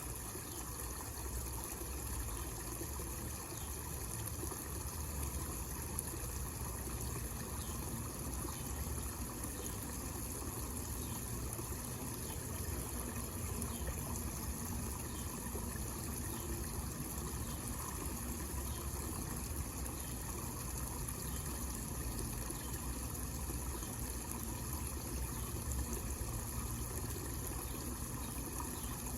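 Small homemade fountain's water spilling steadily over miniature falls into a pond basin, a continuous splashing trickle.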